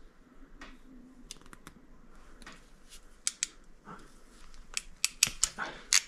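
Hand crimping tool clicking as it crimps a small round terminal onto a wire end: a run of sharp clicks, coming thicker and louder in the last few seconds.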